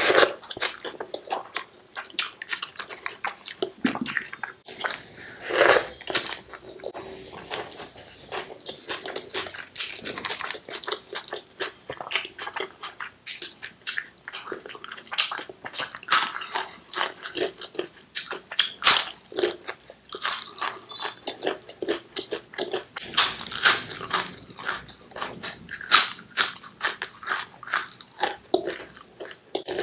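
Close-up eating sounds: crisp fried moong papad crunching between the teeth, mixed with chewing of rice pulao and chickpea curry eaten by hand. The crunching comes in dense crackles, with louder clusters every few seconds.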